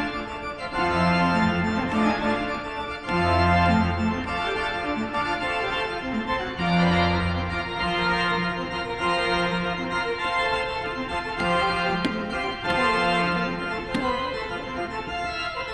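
Organ playing the closing passage of a toccata: detached chords over low notes that sound in separate blocks.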